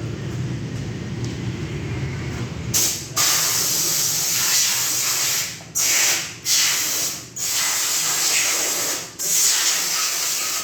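A low hum, then from about three seconds in a pressurized jet hisses loudly in long bursts with short breaks, about six in all, as the Honda Click scooter's body is cleaned.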